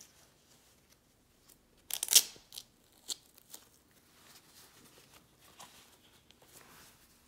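Nylon trail gaiter fabric rustling and crinkling as hands pull it over a trail shoe and hook it at the laces, with a short, loud rasping tear about two seconds in followed by a few small clicks.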